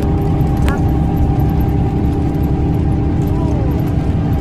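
Steady engine and road rumble inside a moving bus, heard from within the passenger cabin.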